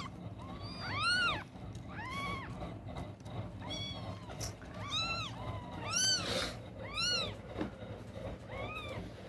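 Newborn kitten crying in short, high, arching mews, about one a second, while searching for its mother's teat to nurse.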